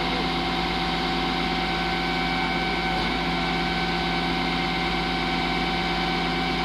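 Heavy machinery engine running steadily at an even idle, with a constant hum and a few steady whining tones.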